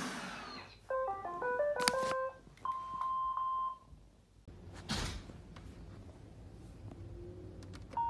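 iRobot Roomba 805 playing its cycle-finished jingle: a quick run of short electronic notes, then one higher note sounded three times. A thump follows about five seconds in.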